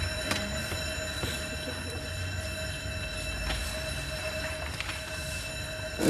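Conventional electric fire alarm bell ringing steadily and without a break, heard from the corridor outside the room.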